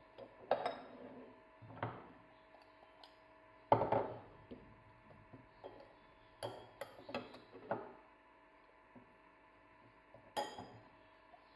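A metal spoon clinking and scraping in a ceramic bowl of oil-and-spice marinade, among a few sharper knocks of utensils and dishes on the table. The loudest knock comes about four seconds in, and a quick run of clinks a little after six seconds.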